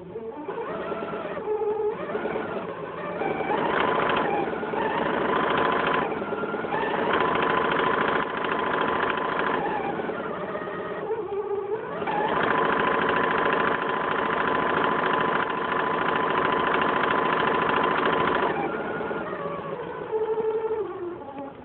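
Janome DC2010 sewing machine running, its motor speeding up in the first few seconds. It runs steadily at speed, dips briefly about halfway through, holds a steady high speed, then slows and stops in the last few seconds.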